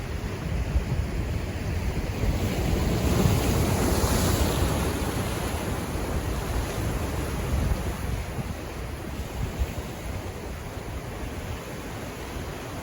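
Pacific Ocean waves washing in: one surge builds to its loudest about three to four seconds in and slowly subsides. Wind rumbles on the microphone underneath.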